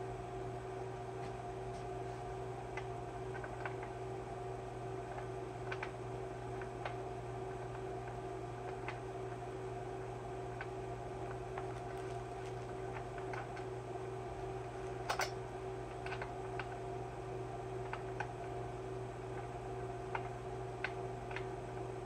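Scattered small metallic clicks of a hand tool working on a chainsaw's top end, irregular and about one every second or two, with one sharper click about fifteen seconds in, over a steady electrical hum.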